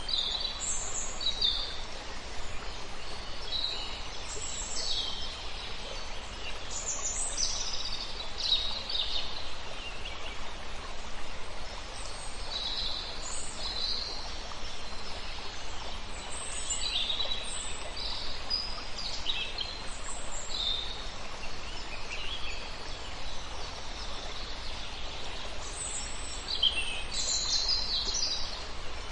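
Birds calling and chirping, many short high calls in quick succession and overlapping, over a steady hiss of outdoor background noise.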